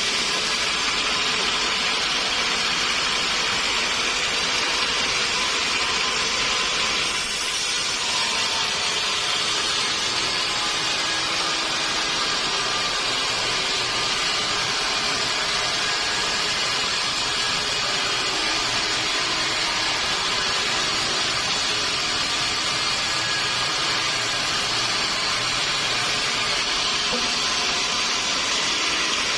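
Sawmill saw running steadily with a constant, even noise and a brief dip about seven seconds in.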